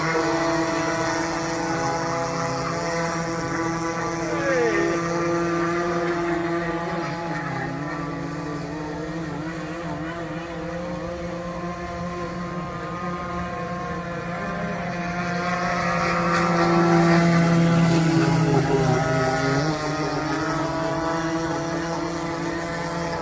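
Radio-controlled model boat's motor running as a steady whine with small shifts in pitch, swelling louder about two-thirds of the way through as the boat comes nearer.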